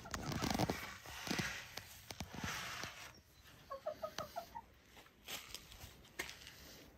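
Domestic hens clucking in a quick run of short notes about four seconds in, after a few seconds of rustling and knocks.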